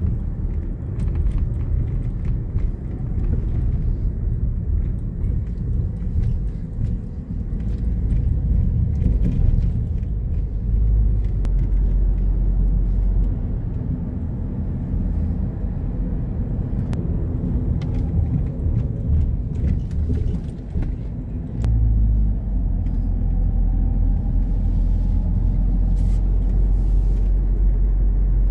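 Steady low rumble of a car driving along a road, heard from inside the cabin: tyre and engine noise, growing heavier at the very bottom for a few seconds near the middle and again over the last quarter.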